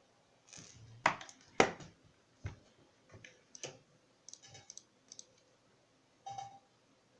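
Irregular sharp clicks and crackles, the two loudest about a second in and half a second apart, then smaller crackly clusters. This is the crackling noise in Discord's audio on a Linux PC.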